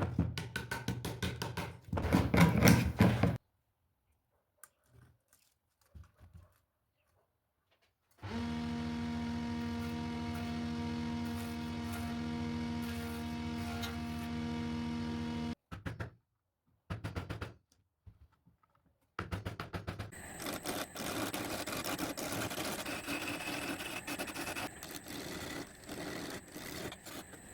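Woodworking tool sounds in short edited bursts: quick rubbing strokes on wood, then a steady hum from an electric tool running for about seven seconds, then rapid scratchy strokes again near the end.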